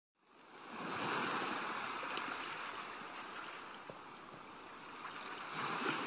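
Sea waves washing up on a beach, a rushing hiss that fades in, swells about a second in, eases off, and swells again near the end as the next wave comes in.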